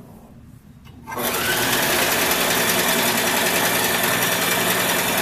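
Electric household sewing machine running steadily at speed, stitching fabric; it starts about a second in.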